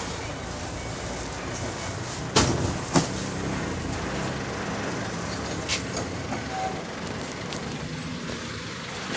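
Steady hum of idling truck engines in a busy loading yard, with two sharp knocks about two and a half and three seconds in and a few lighter clicks later.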